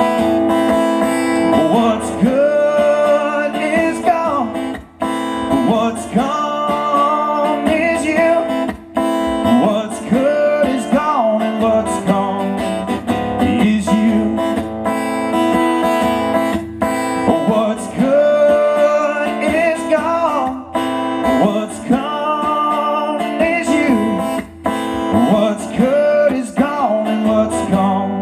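Acoustic guitar strummed, with a lead melody of held and sliding notes over it, in an instrumental passage of a folk song.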